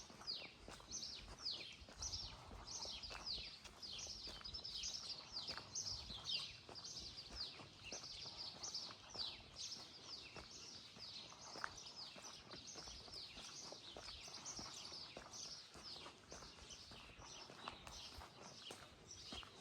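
Birds chirping continuously outdoors: a steady stream of short, high chirps, each sliding downward in pitch, several a second.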